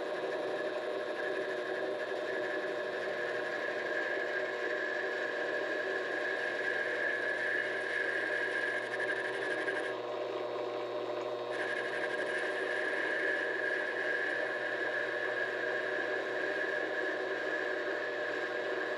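Vevor 7x12 mini-lathe running steadily, its motor and gears giving an even, many-toned whine. The higher part of the whine drops out for a second or so about halfway through, then comes back.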